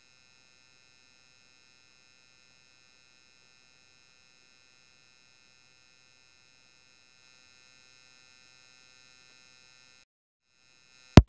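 Near silence with a faint steady electronic hum of several pure tones, then a single sharp, loud click near the end.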